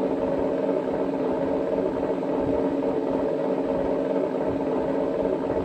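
Sense ESS-ONE electronic engine-sound unit on an RC truck playing a simulated engine idle through its small speaker, a steady hum with a few fixed tones and no change in pitch.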